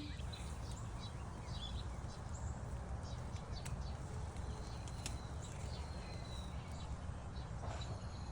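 Outdoor ambience: birds chirping faintly, with one held whistling note in the middle, over a steady low rumble.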